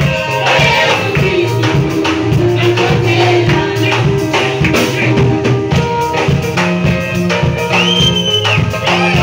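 Live gospel praise music: a group singing over a fast, steady beat of drums and rattling percussion, with a high note held for about a second near the end.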